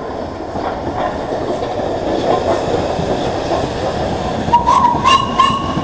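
LNER Class A3 steam locomotive 60103 'Flying Scotsman' and its coaches rolling past at close range as they arrive, a steady heavy rumble of wheels on the rails. About four and a half seconds in, a short high squeal lasts about a second, with a few sharp clicks.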